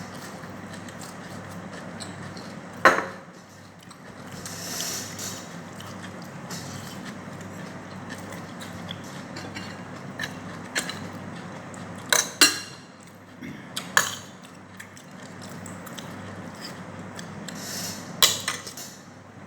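Cutlery clinking against a plate during a meal: a handful of sharp clinks, the loudest about three seconds in and a few more in the second half, over a steady low hum.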